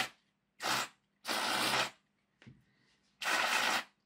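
Aerosol contact cleaner spraying through a thin extension straw in short hissing bursts, each about half a second to a second long and roughly one a second, flushing oil off a model locomotive chassis. A brief faint sputter comes about halfway through.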